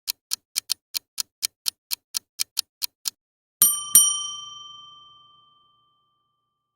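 Clock ticking at about four ticks a second, stopping about three seconds in, followed by two quick bell dings that ring out and fade over a couple of seconds, like a timer running out.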